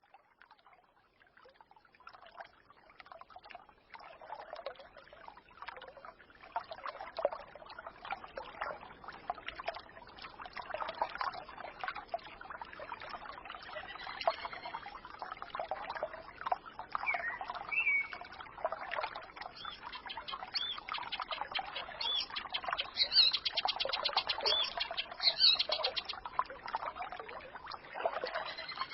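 Small forest stream trickling and babbling, fading in over the first few seconds. Songbirds chirp over it, with a rapid trill toward the end.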